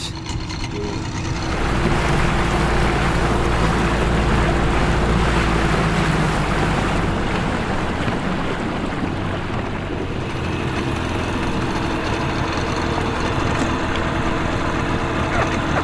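A small boat's outboard motor running under way, louder from about one and a half seconds in. Its steady hum sits under rushing wind and water noise.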